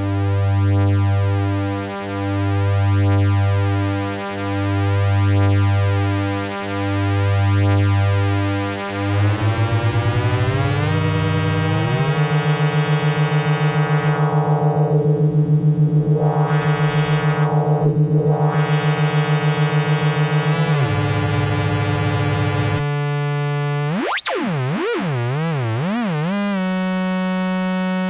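MFOS Weird Sound Generator analog synthesizer making buzzy electronic tones: a low drone pulsing in four slow swells, then sliding pitches into a steady buzzing drone with a fast flutter and a sweeping filter. About three quarters of the way in, a sharp squeal swoops up and warbles back down before it settles on steady tones.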